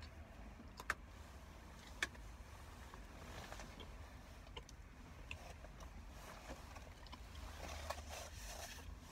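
Close-up eating and handling sounds: two sharp clicks about one and two seconds in, then rustling of a padded jacket and the sandwich as the eater reaches across and lifts the food, over a low steady hum.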